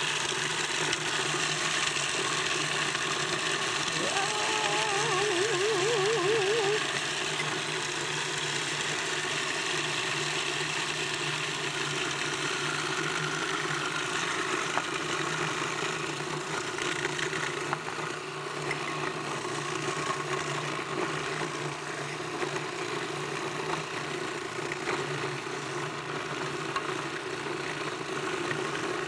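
Countertop food processor motor running steadily, its blade grinding pecans, dates and carob powder into a paste. A short wavering tone rides over the hum about four seconds in.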